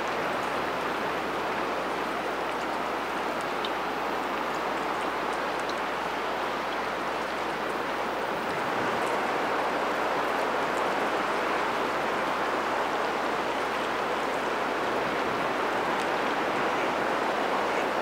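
Steady rushing of open river water flowing past ice, a little louder from about halfway through.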